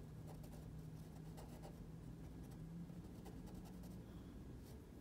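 Colored pencil scratching on paper in short, irregular strokes as an area is filled in with colour. A faint low hum runs underneath.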